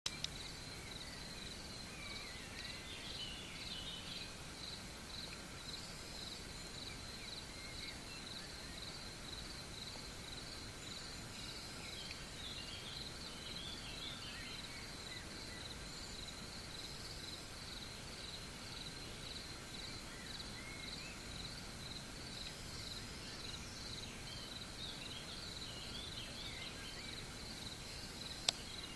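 Meadow ambience: a cricket chirping steadily in an even, high-pitched pulse of several chirps a second, with birds calling now and then. There is a single sharp click near the end.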